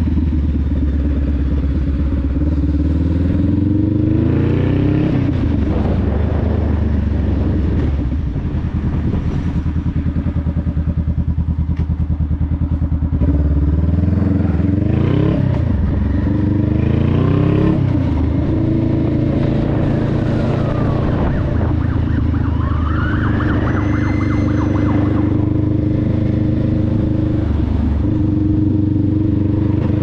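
Honda Rebel 500's parallel-twin engine through a TBR Comp S exhaust, on the road: revs climb and drop back at each gearshift a few seconds in and again from about thirteen to eighteen seconds in, with steady cruising in between.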